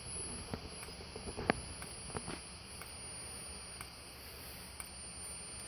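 Gentex Commander 4 horn strobe running in strobe-only mode: a faint high-pitched whine that breaks off briefly about once a second, in step with the strobe flashes, with a few faint ticks. The user takes it for the horn faintly powering up along with the flashing strobe.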